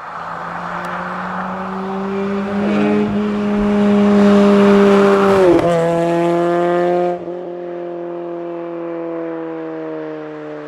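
Toyota MR2 SW20's four-cylinder engine running at steady revs, its pitch dropping sharply as the car drives past about five and a half seconds in. It then cuts to another run with the engine tone slowly falling.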